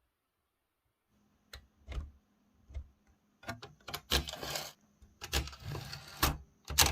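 Olivetti Valentine portable typewriter being typed on: scattered key strikes begin about a second and a half in, then denser runs of clattering typing, with the sharpest strike near the end.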